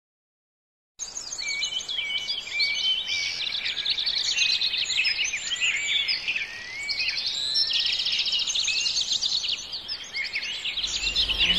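A chorus of several songbirds singing and calling at once: many overlapping chirps, whistles and quick trills, starting about a second in after a moment of silence.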